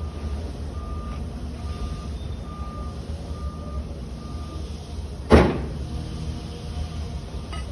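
A heavy truck's engine rumbles low and steady while a backup alarm beeps about once every 0.8 seconds, the beeps stopping about four and a half seconds in. About five seconds in comes a single sharp, loud bang.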